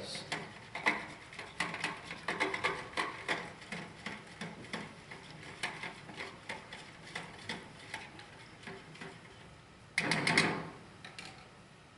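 Rapid, irregular small clicks and taps of something being stirred into a bowl of water to turn it red, thinning out toward the end, with a brief louder rustle about ten seconds in.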